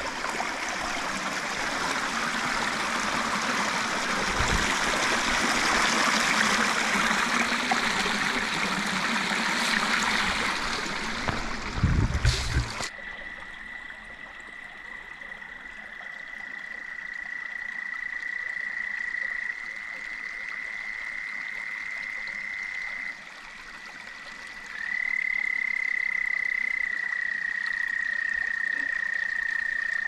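Rushing creek water for the first half, with a couple of dull thumps. After a sudden cut, frogs give long, steady, high trills, one after another at slightly different pitches.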